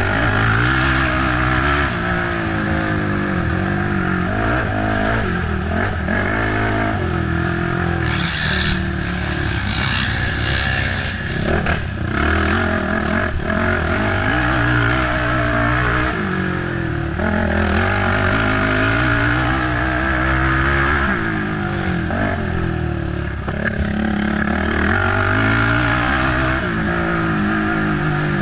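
Race quad (ATV) engine under hard throttle, revving up and dropping back again and again as the rider accelerates, shifts and backs off through the course.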